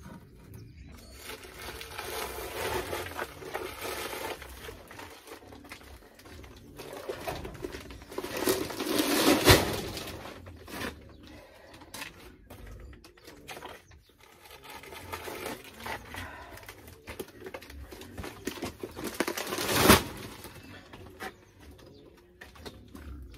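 Feed and buckets being handled: irregular rustling and scraping, with two sharp knocks about ten and twenty seconds in.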